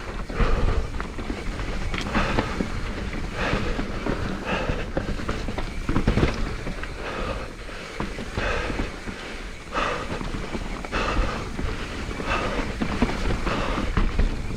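Mountain bike rolling over a rough downhill trail, with rumble and knocks from the tyres and frame. Over it the rider breathes hard, about one breath a second, worn out from the run.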